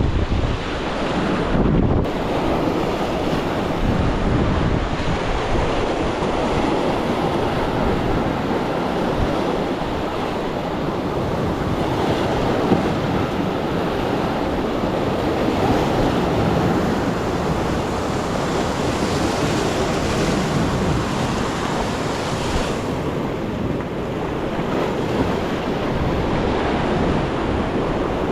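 Sea waves washing steadily, with wind buffeting the microphone in a low rumble.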